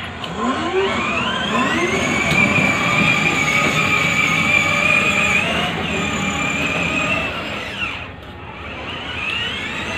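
Electric ride-on toy car's drive motors and gearboxes whining as it drives. The whine rises in pitch as it pulls away about a second in, holds steady, drops away near eight seconds and rises again near the end.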